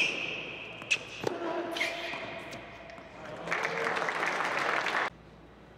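Tennis ball struck by rackets and bouncing on an indoor hard court, several sharp hits in the first two seconds. Then about a second and a half of applause that cuts off suddenly.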